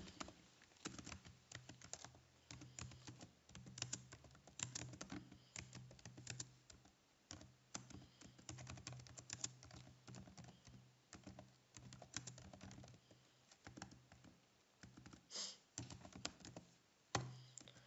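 Faint computer-keyboard typing: a run of irregular, quick keystroke clicks with brief pauses between bursts.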